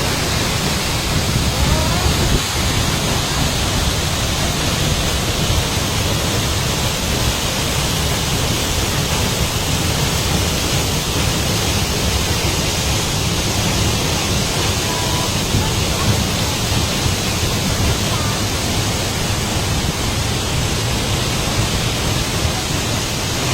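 Waterfall plunging into its pool: a loud, steady rushing of falling water.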